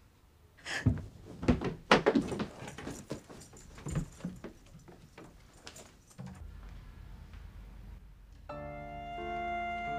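Several knocks and thumps in the first six seconds. Then a low hum comes up, and about eight and a half seconds in, soft background music with held notes begins.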